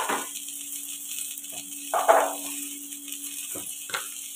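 A few short knocks and a brief rattle, the loudest about halfway through, from kitchen things being handled beside a kadai of frying vegetables, over a low steady hum and a faint sizzle.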